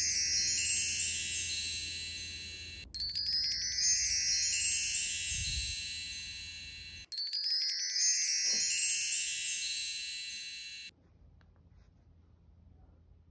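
Glittering sparkle chime sound effect, played three times in a row, each one ringing out and fading over three to four seconds.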